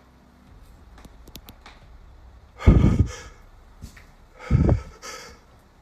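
Two loud, heavy thuds about two seconds apart, against quiet room noise.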